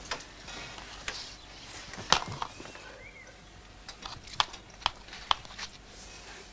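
Sharp clicks and taps of game pieces on a Mensch ärgere Dich nicht (ludo-style) board as a move is made, with three evenly spaced taps a bit under half a second apart in the second half, like a pawn counted along the spaces.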